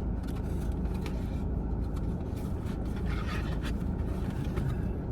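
Light clicks and scrapes of a corn dog being dipped into a small cup of spicy mayo, over a steady low rumble.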